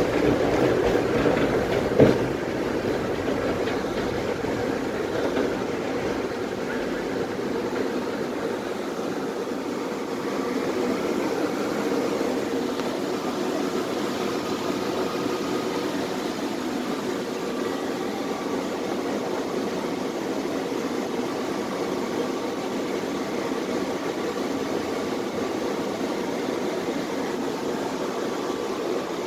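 Tatra T3SU tram running, heard from inside the car: a steady rumble, with one sharp knock about two seconds in.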